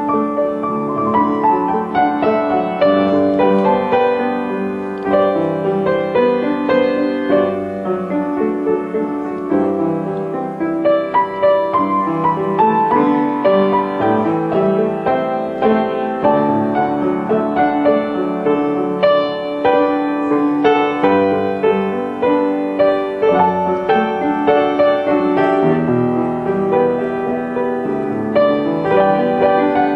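Instrumental piano music: a steady flow of gentle notes and chords with no singing.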